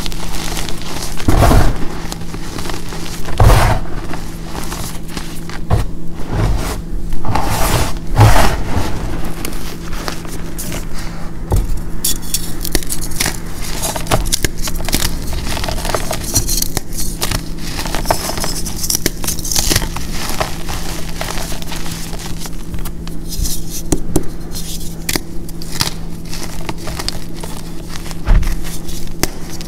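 Hands squeezing and crumbling reformed gym chalk, a mix of chalk powder, baby powder, corn starch and baking soda: irregular crunches and crackles as clumps and chunks break up, with several heavier crunches in the first few seconds and a finer, hissing crackle about halfway through.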